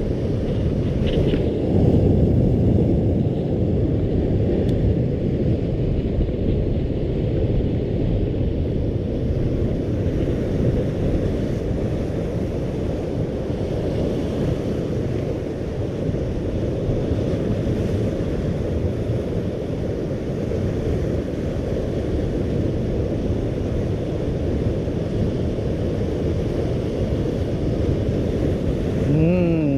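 Wind buffeting an action camera's microphone over the wash of surf, a steady low rumble without breaks.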